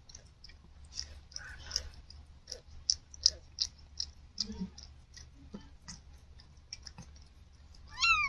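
Siamese mother cat licking her newborn kitten clean: soft wet licking and clicking sounds throughout, then one short high-pitched mew near the end.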